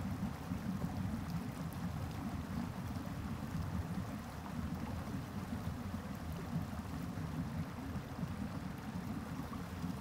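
Small stream cascading over rocks, a steady deep rushing of water.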